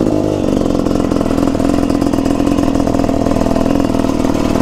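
KTM 300 two-stroke motorcycle engine running steadily, its pitch holding level after a brief shift in the first half second.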